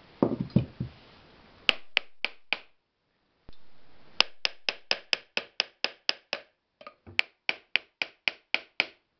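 Rapid light hammer taps on an electric motor's end cover, driving it down onto the housing and bearing. They come about four a second in three runs with short gaps between, and the cover is not yet fully seated.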